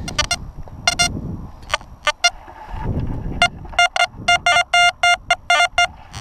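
XP Deus metal detector beeping as its coil is swept over a buried brass screw. The beeps are short and all at one pitch, scattered at first, then a fast run of about four or five a second in the second half. This is the clean, repeatable good tone that a non-ferrous target like a brass screw gives. Low scuffing sounds fall between the beeps.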